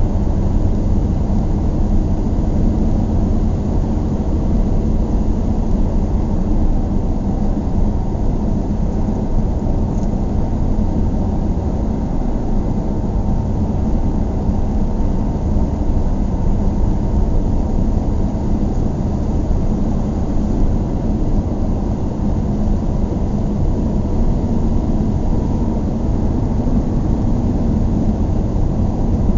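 Car running at a steady speed: a constant low engine and road rumble that neither rises nor falls.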